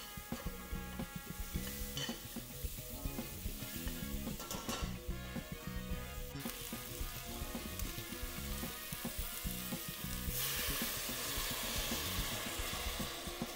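Sliced onions frying and sizzling in a stainless steel pot as they are stirred, over background music. About ten seconds in, a louder hiss rises as butterfly pea flower tea is poured into the hot pot.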